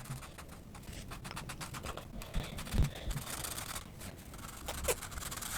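Sharpie marker tips scratching across paper in many quick strokes as a picture is coloured in.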